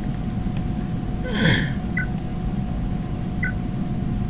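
A person's single breathy sigh with a falling pitch, about a second and a half in, over a steady background hum.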